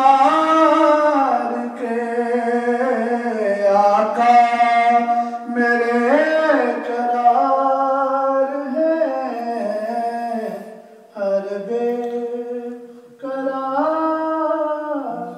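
A man singing a naat, an Urdu devotional poem in praise of the Prophet, solo with no instruments, in long, wavering, ornamented phrases amplified through a microphone, with short breaks for breath.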